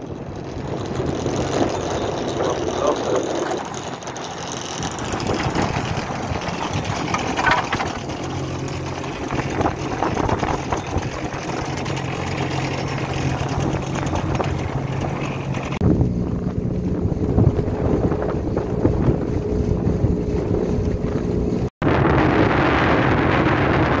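Small boat's motor running steadily under way, with wind buffeting the microphone.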